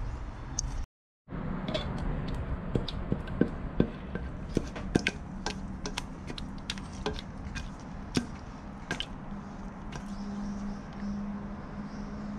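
A kitchen utensil clicking and tapping against cookware in many small irregular knocks while thick, freshly cooked chestnut jelly mixture is moved into an oiled glass bowl. The sound cuts out completely for a moment about a second in.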